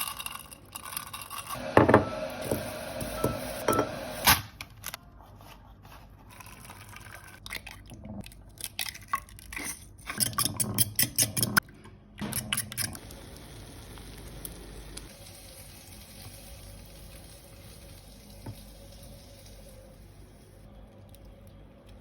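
Kitchen utensils and dishes clinking and knocking in two bursts of handling, then a quieter steady background for the rest.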